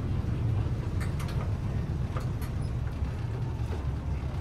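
River tourist boat's engine running, a steady low rumble heard on board.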